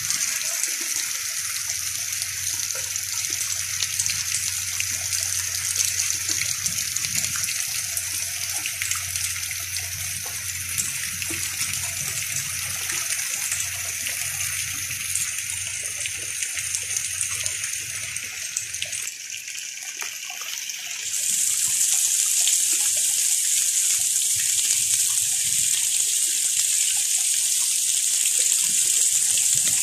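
Heavy rain pouring down in a storm, a steady hiss with a low rumble beneath it for the first two-thirds. The rain grows louder about two-thirds of the way through.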